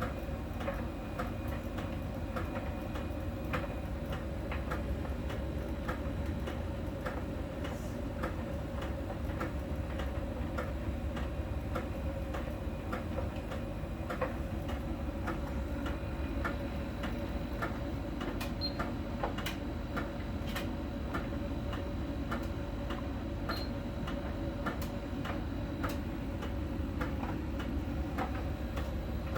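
Miele tumble dryer running, a steady drum rumble with repeated light ticks, a couple a second and not quite even. The ticks come from a small round sensor ball riding over the outside of the drum as it turns and clicking when it touches a contact spot, as a Miele technician explained.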